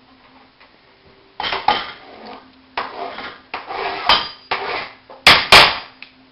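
Kitchen clatter of a knife and plastic cutting boards being handled and knocked against the counter: a run of sharp knocks and scrapes starting after about a second and a half, with two loud knocks close together near the end.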